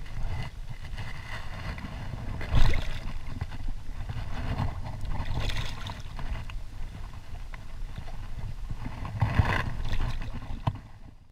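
Shallow river water splashing and sloshing close to the microphone as a hooked Atlantic salmon is landed by hand. There are several louder splashes, the biggest about two and a half seconds in and another near the end.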